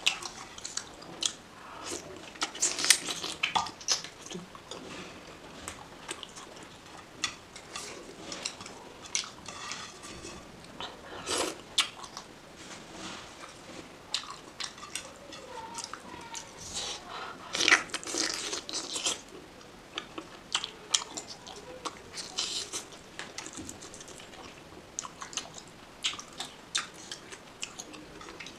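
Close-miked chewing and biting of oily chicken curry, with many short wet clicks and crunches, as saucy fingers tear the chicken apart.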